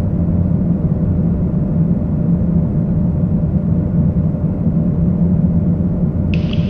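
Steady cockpit rumble of an Airbus A220-300 on final approach: airflow and engine noise with a faint steady hum. A higher hiss switches on near the end.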